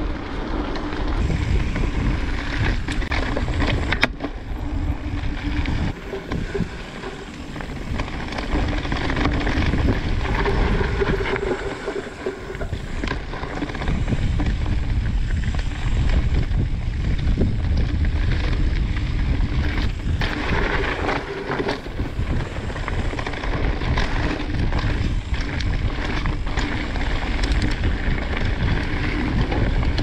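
Mountain bike descending a dirt trail: wind buffeting the microphone over the rumble of the tyres, with frequent knocks and rattles as the bike rides over bumps.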